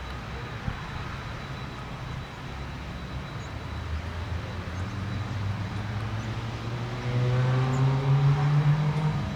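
ATR 72 twin-turboprop airliner, its propeller drone growing steadily louder and rising in pitch through the second half, then starting to fall in pitch at the very end as it goes past.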